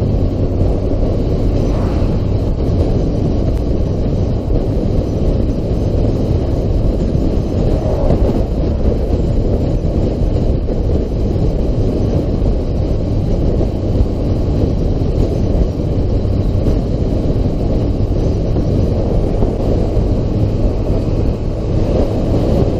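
Wind rushing over a helmet-mounted camera's microphone, with a Yamaha FZR600R's inline-four engine running steadily underneath at a constant cruising pace.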